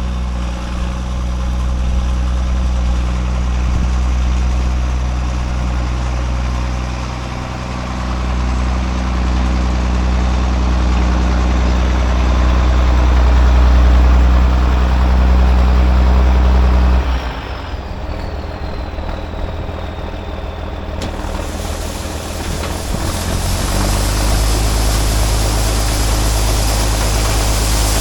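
Heavy diesel engine running steadily. About two-thirds of the way through it drops to a lower, quieter level while a faint whistle falls away. A steady hiss then comes in, and the engine picks up again near the end.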